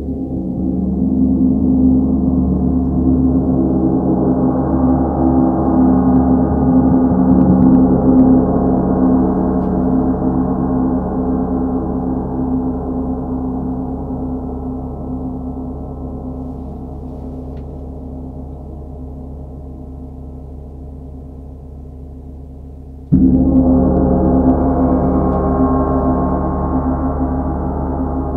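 Large hanging gongs played with soft mallets: the shimmering sound swells under repeated strokes over the first several seconds, then rings on and slowly fades. Late on, a loud fresh wash of gong sound starts abruptly.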